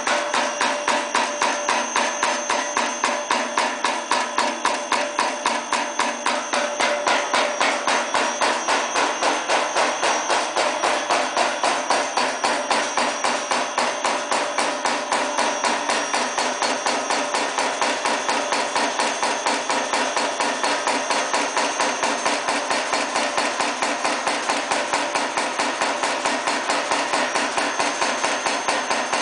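High-speed mechanical punch press running continuously, its ram striking through a steel strip in a rapid, even hammering of about four strokes a second. The stroke rate quickens slightly as the speed is turned up from roughly 220 to 270 strokes a minute.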